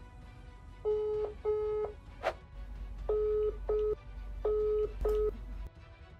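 Smartphone's outgoing call ringing tone: short steady beeps in pairs, the pair repeating about every second and a half, with a single sharp click about two seconds in.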